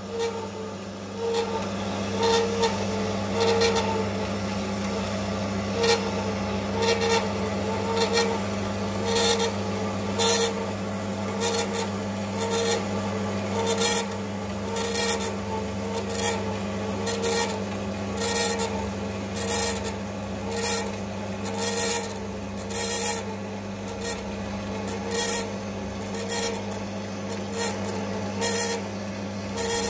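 A small powered metal-cutting saw cutting through a flat mild-steel bar lubricated with cutting fluid. A steady motor hum runs under a rasping cut that swells about once a second.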